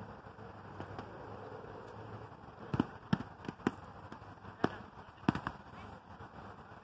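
Padded foam weapons striking shields and bodies in a mock melee: about seven sharp whacks in quick, uneven succession, starting near the middle, over a low steady outdoor background.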